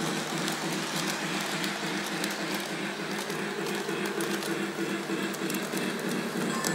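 Lionel LionChief Polar Express toy steam train and passenger cars running around the track: a steady motor hum with a rapid, even rattle and scattered sharp ticks of the wheels on the rails.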